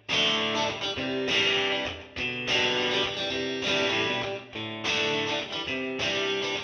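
Background music with guitar, chords changing about once a second.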